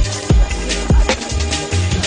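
Electronic hip hop-style music with a heavy beat: deep kick drums that drop in pitch, a held bass line and regular hi-hat ticks.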